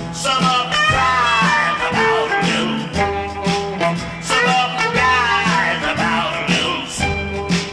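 Rock song with a steady drum beat, bass, guitar and singing.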